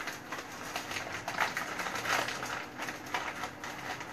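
Soft, irregular rustling and light clicks of hands handling shrimp as they are laid out on the lid of a cooking pot, over a faint low hum.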